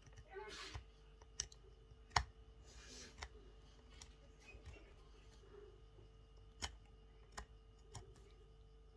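Small screwdriver tip scraping and picking at a burnt LED chip on an LED bulb's circuit board: faint scratching with several sharp little clicks.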